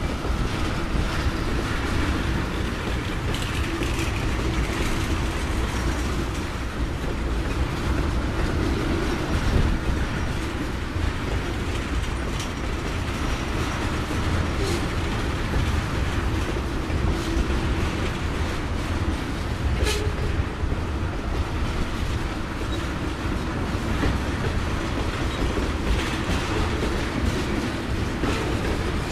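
Loaded crude oil tank cars of a freight train rolling past, their wheels rattling steadily over the rails with a clickety-clack and a few sharp clicks.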